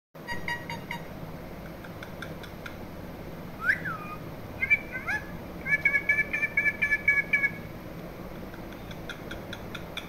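Rose-ringed parakeet giving whistled calls: short chirps at the start, a swooping glide a little before halfway, then a fast run of short chirps, with quieter chirps near the end.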